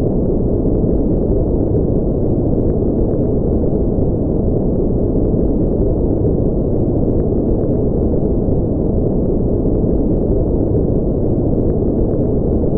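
Steady noise-machine sound for sleep, with the highs filtered off: a deep, even rumble with no bright hiss and no change.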